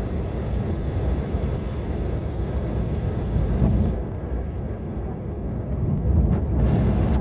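Cabin noise inside an Embraer 195 on approach: the steady low rumble of its twin turbofan engines and rushing airflow. Near the end the noise swells briefly with a rising hiss.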